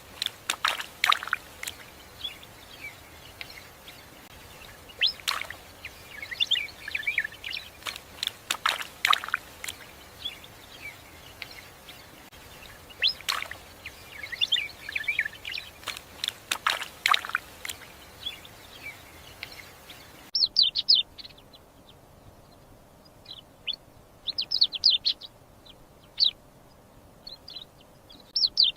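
Small birds chirping and twittering in quick clusters, with several loud, sharp, downward-sweeping calls among them. About two-thirds of the way in the background hiss drops away and the chirping goes on in short bursts.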